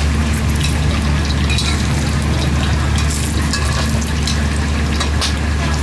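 Beaten egg deep-frying in hot oil for an omelette: a steady sizzle full of sharp crackles and spatters, over a steady low rumble.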